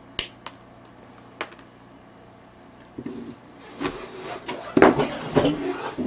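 Side cutters snipping through a jewelry wire link: one sharp click just after the start, then two smaller clicks. About halfway through, metal chain links and tools clatter and clink as they are handled and set down on the table, getting louder toward the end.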